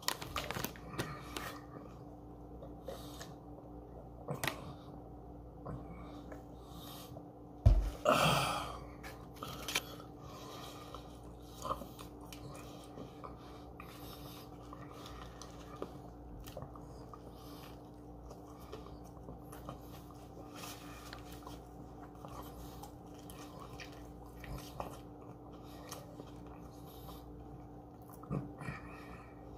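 Chewing and the crinkle of a foil burger wrapper being handled, with a thump and a short rustle about eight seconds in. A faint steady hum runs underneath.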